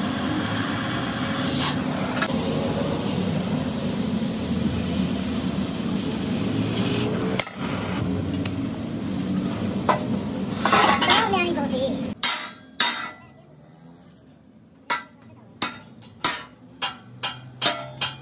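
Stick arc welding on a steel box section, the arc crackling and sizzling steadily, with a few knocks on the steel near the end of it. About twelve seconds in the welding stops abruptly and a string of ringing hammer blows on steel follows, roughly one every half second to second.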